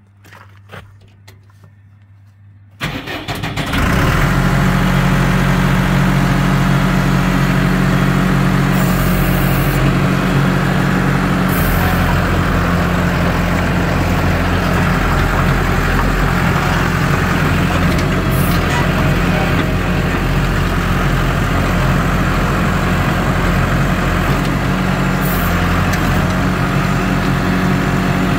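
The Cummins diesel engine of a Zega D335 crawler drill rig starting about three seconds in, building up over a second, then running steadily.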